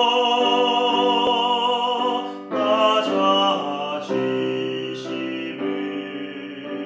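Solo voice singing a Korean hymn in a classical style, holding long notes over piano accompaniment, with a short break and a new phrase about two and a half seconds in.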